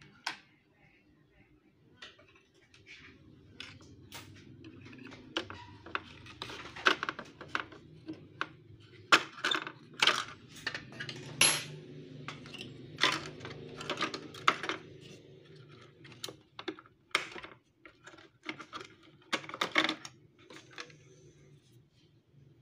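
Hard plastic parts of an inkjet printer being handled and taken apart: irregular clicks, knocks and clatters, busiest in the middle stretch, over a faint low hum.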